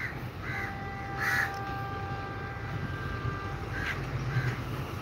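A crow cawing about five times, loudest about a second in, over the low rumble of a distant diesel train. A faint, long, steady horn tone from the train sounds from about half a second in until about three and a half seconds.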